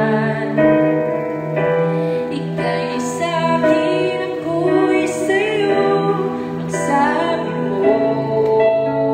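A slow, gentle song: a sung voice over sustained keyboard chords.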